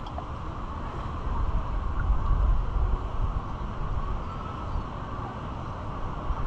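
Wind buffeting the microphone in a low, uneven rumble over a steady haze of outdoor background noise.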